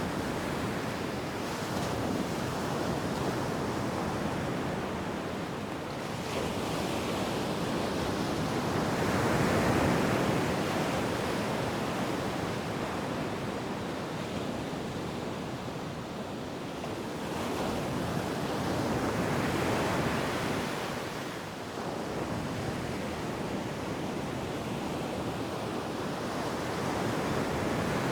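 Ocean surf on a beach: a continuous wash of waves, with two larger waves swelling and breaking about ten seconds apart.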